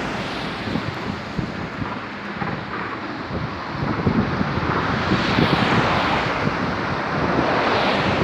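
Wind buffeting a handheld microphone in a steady rush, with irregular low thumps from the movement of jogging.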